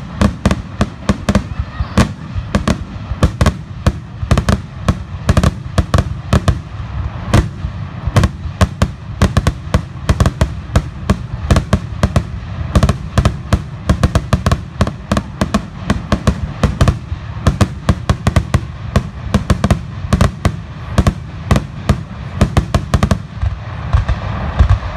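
Aerial fireworks shells launching and bursting in a dense, rapid barrage of loud booms, several a second without a break, typical of a grand finale.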